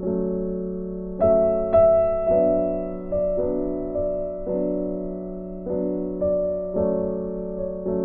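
Background piano music: slow chords struck about once a second, each ringing on and fading before the next.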